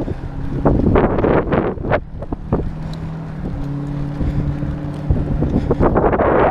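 Wind buffeting the microphone of a camera on a moving BMX bike, in irregular gusts, over a steady low hum that shifts slightly in pitch about halfway through.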